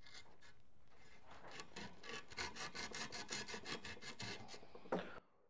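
Sandpaper rubbed by hand back and forth in a tight inside corner of a CNC-carved wooden plaque. The quick scraping strokes, about four a second, start about a second and a half in and stop with a short knock near the end.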